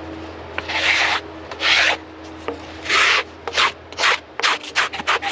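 Sawdust being wiped off the freshly sawn face of a honey locust slab: a series of rubbing strokes over the wood, longer at first and then shorter and quicker near the end.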